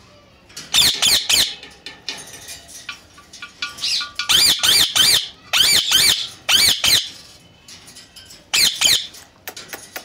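Indian ringneck parakeet giving sharp, high-pitched squawks in quick runs of two to four calls, with short pauses between the runs.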